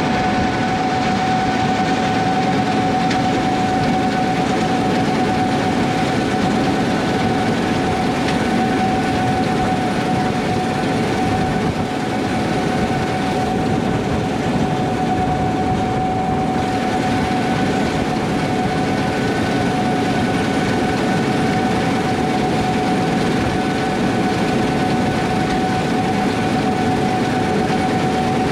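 Combine harvester running steadily at working speed: a continuous mechanical rumble and clatter with a steady whine riding over it.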